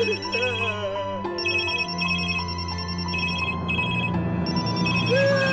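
Mobile phone ringtones beeping in rapid repeating electronic patterns over slow, sad background music.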